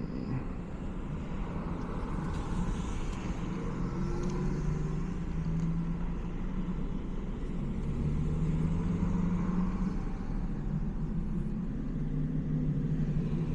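A BMW 330i's turbocharged four-cylinder engine running under way, with road noise; the engine note holds fairly steady, rising a little now and then.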